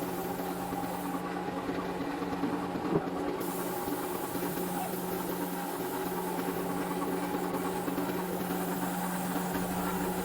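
A motor running with a steady hum, with a single sharp click about three seconds in.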